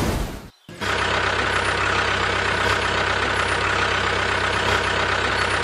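A rushing noise cuts off about half a second in. After a moment of silence a steady engine idling sound starts, with a fast, even low chug that runs on unchanged.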